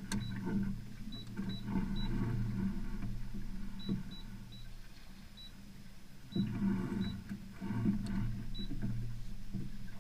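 Short high electronic beeps, about a dozen at uneven spacing, over a low motor whir that comes in two spells: at the start and again from about six seconds in.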